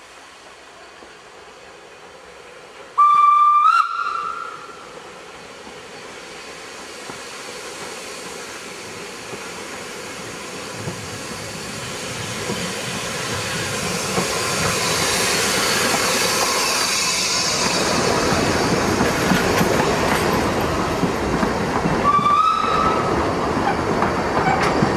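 Isle of Man Railway Beyer Peacock 2-4-0T narrow-gauge steam locomotive sounds a loud whistle blast, rising slightly in pitch, about three seconds in. Its steam and running noise then grow steadily louder as it draws near, and its carriages roll past with wheels clicking over the rail joints. A second, shorter whistle blast comes near the end.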